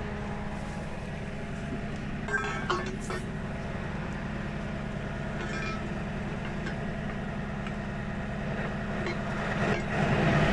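Tow truck engine idling steadily, with a few metallic clinks about two and a half seconds in. A passing vehicle grows louder near the end.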